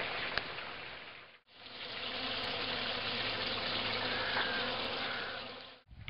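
Honeybee swarm buzzing, the dense hum of many bees at once. It drops out briefly about a second and a half in, comes back as a steadier hum, and fades out near the end.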